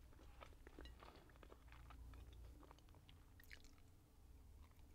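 Faint close-up chewing of a mouthful of food, with many small wet mouth clicks. A brighter cluster of clicks comes about three and a half seconds in, as a forkful of fried plantain goes into the mouth.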